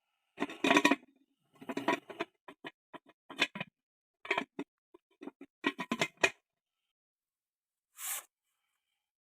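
Close rustling and handling noises: several clusters of short scrapes and clicks, then a single brief hiss about eight seconds in.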